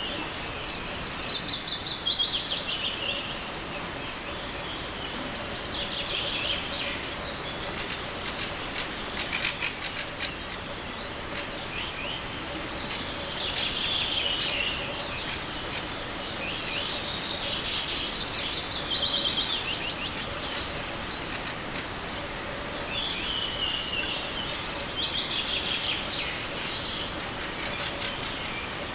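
Songbirds singing, short trilling phrases repeated every few seconds, over the steady rush of a small forest river.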